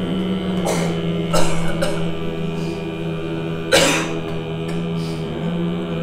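Several voices holding a low, steady throat-singing drone together, broken by sudden coughs, the loudest about a second and a half and four seconds in.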